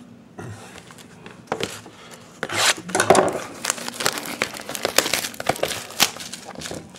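Plastic shrink wrap on a sealed hockey card box being torn open and crumpled: irregular crinkling and crackling that starts about a second and a half in and grows denser.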